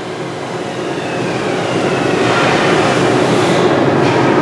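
Laars MagnaTherm gas boiler firing at low fire (minimum modulation, 25% firing rate): a steady rush of combustion blower and burner noise with a faint hum, getting gradually louder.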